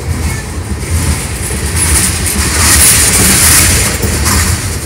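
Freight train's tank cars and covered hopper cars rolling past close by: a steady rumble of steel wheels on rail that grows louder in the middle, with a high hiss.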